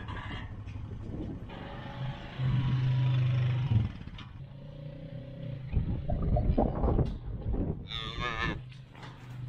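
Black Angus cattle bawling: one long low moo about two and a half seconds in, and a higher, wavering call near the end, over the running engine of an ATV pushing the herd.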